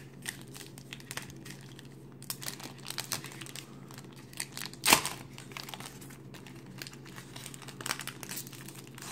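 Packaging around a stack of trading cards being crinkled and torn open by hand: many small crackles, with one loud rip about five seconds in.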